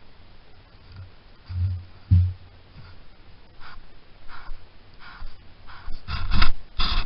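Deer walking through dry leaf litter, its steps rustling and crunching louder and more often as it comes closer. Two dull low thumps come about two seconds in.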